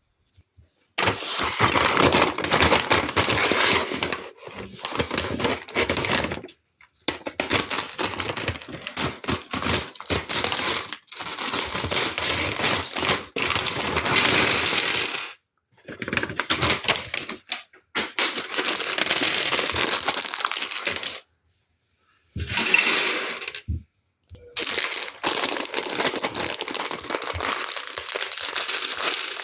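Small plastic LEGO Technic pieces clattering and rattling as they are rummaged through and handled, with many small clicks, in spells of a few seconds that break off abruptly several times.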